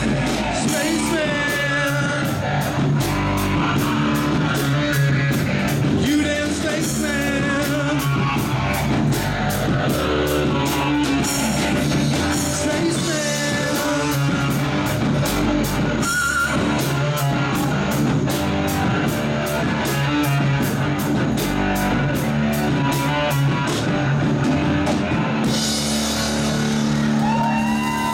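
Live rock band playing: a male singer over electric guitar, bass guitar and drum kit, with the drums keeping a steady beat.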